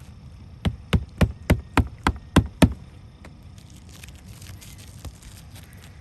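Hammer driving a roofing nail into shingles: eight quick, evenly spaced blows about three a second, followed by a faint scraping rustle and one softer knock.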